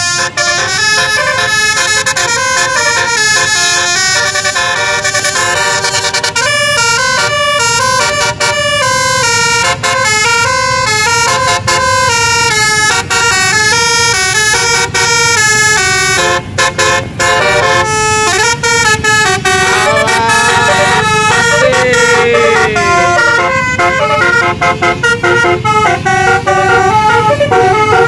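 A tour bus's basuri telolet horn playing a tune of quick stepped notes, repeated over and over, over a low hum of engines. About twenty seconds in, a sliding, wavering tone joins the tune.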